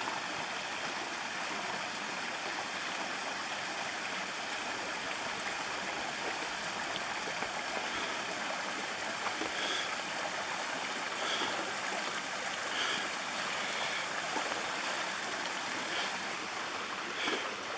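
Small waterfall spilling between boulders into a rocky brook: a steady rush of falling water that makes quite a lot of noise.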